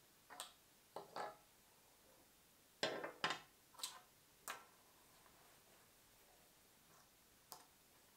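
A knife, pliers and a lighter set down one after another on a tabletop, making sharp knocks and clacks. There are a few near the start, a louder cluster of four about three to four and a half seconds in, and a single tap near the end.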